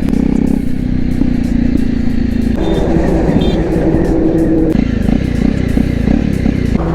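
Jawa 42's single-cylinder engine running through its stock exhaust, its note changing about two and a half seconds in and again near five seconds. The timing chain tensioner is freshly replaced, and the chain noise is lighter, leaving the exhaust more prominent.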